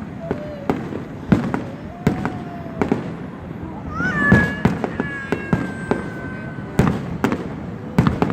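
Fireworks display: aerial shells bursting in sharp bangs every second or so, with echoing rumble between them. About four seconds in, a high tone rises and holds for about two seconds over the bangs.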